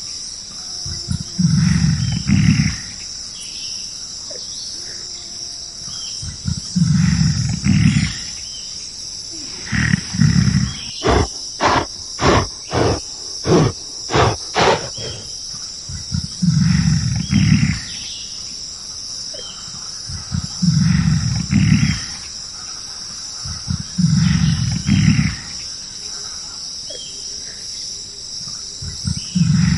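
Deep, loud roaring calls from a large animal, each lasting a second or two and repeating about every four seconds. About eleven seconds in comes a run of roughly nine short grunts, about two a second. A steady high insect chorus runs underneath.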